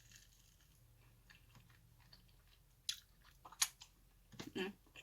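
Chewing and biting into gravy-dipped fried chicken, heard close up. Quiet at first, then a few short crunches and mouth clicks in the second half, the loudest near the end.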